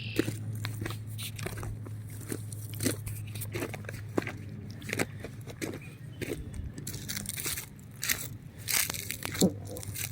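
Footsteps of a person walking along a path, irregular steps about one to two a second, over a steady low hum.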